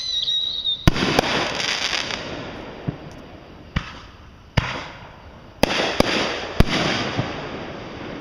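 Fireworks going off: about eight sharp bangs of bursting shells, several in quick succession, each followed by a crackling shower that slowly fades. A whistle falling in pitch dies out in the first half second.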